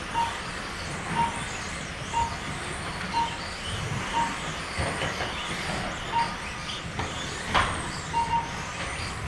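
Mini-Z 1:27-scale RC race cars running around a carpet track, their small electric motors whining up and down in pitch over tyre noise. A short electronic beep sounds about once a second, and there is a sharp knock about seven and a half seconds in.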